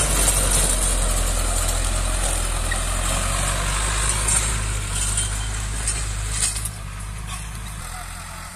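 Sonalika tractor's diesel engine running steadily while its rotavator churns the soil, a low engine drone under a dense grinding rush. The whole sound drops noticeably about seven seconds in.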